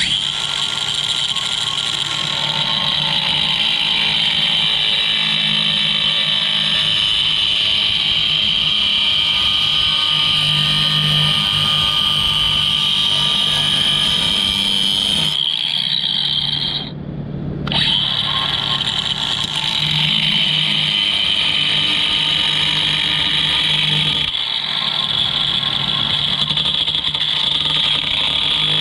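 Cordless DeWalt 20V angle grinder with a cut-off wheel cutting into cracked wood-stove plate metal to widen the crack: a steady high whine with the rasp of the disc on the metal. It briefly lets off about sixteen seconds in, then comes back up to speed and keeps cutting.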